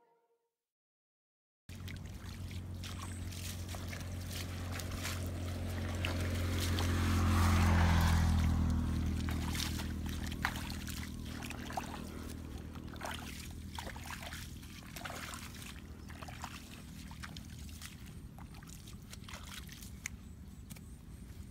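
Footsteps wading through shallow water and wet mud, with small splashes and squelches. Under them a low engine drone swells to its loudest about eight seconds in, dropping in pitch, and then slowly fades.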